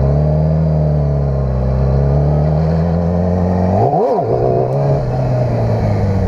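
Motorcycle engine running under way at a steady pitch, with one quick rise and drop in engine pitch about four seconds in, a brief blip of the throttle.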